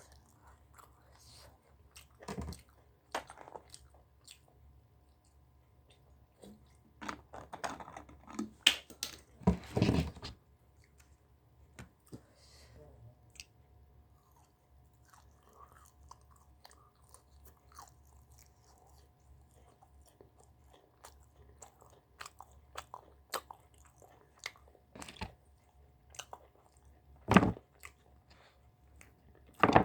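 Close-up eating sounds: chewing and crunchy bites into pork belly and Cheongyang green chili peppers, with irregular wet mouth clicks and a few louder crunching bites about ten seconds in and near the end.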